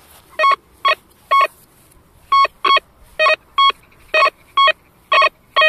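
Quasar F3 metal detector giving short, repeated target beeps, about two a second in pairs as the 22 kHz coil swings back and forth. The beeps are its response to a copper coin buried 25 cm deep, read as target ID 84.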